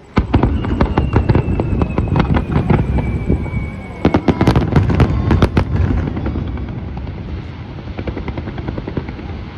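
Fireworks bursting in a rapid barrage of sharp bangs that starts abruptly, with a denser cluster of cracks about four to five and a half seconds in, then the rumble dies away. A faint falling whistle runs through the first half.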